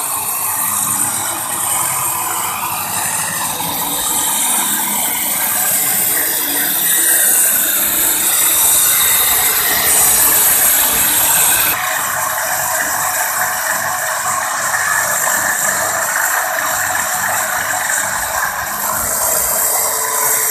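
Corded angle grinder running steadily with its disc against the end of a precast concrete double-T roof beam. It is a continuous, loud grinding that gets a little quieter and less shrill about twelve seconds in.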